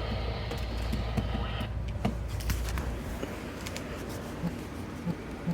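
Low steady hum with a few faint clicks and hiss; the hum stops about three seconds in, leaving hiss and a few soft low thumps.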